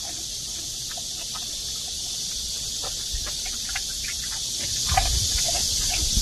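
Mini pig with its snout in a tub of ice water, chewing and crunching the floating ice: scattered short crunches and splashes that grow louder about five seconds in. A steady high hiss runs underneath.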